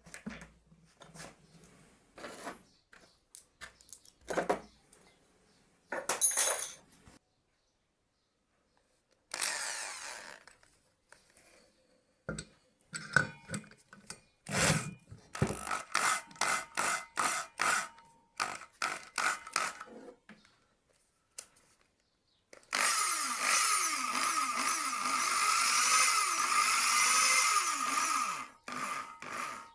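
Workshop work sounds: a series of separate knocks and scrapes, including a quick run of rhythmic strokes. Then a hand-held power tool runs steadily for about six seconds and stops just before the end.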